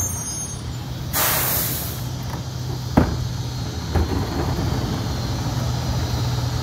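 Rear-loader garbage truck's diesel engine idling steadily, with a short burst of air hiss about a second in. Two sharp clunks follow around three and four seconds in as a wheeled plastic recycling cart is handled.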